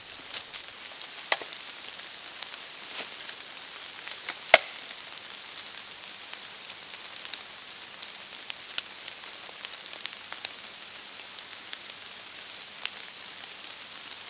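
Forest ambience: a steady hiss with scattered sharp ticks and crackles, the loudest tick about four and a half seconds in.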